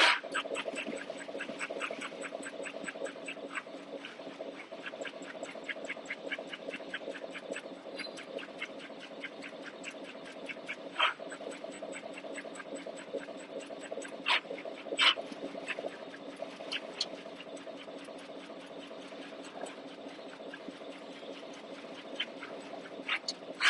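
CNC turret punch press punching sheet metal: a rapid, even train of punch strokes, about four to five a second, over the steady hum of the machine's drive, with a few louder knocks standing out now and then.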